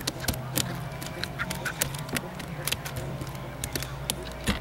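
Irregular clicks and taps of a small catfish being handled while a swallowed hook is worked out, over a steady low hum.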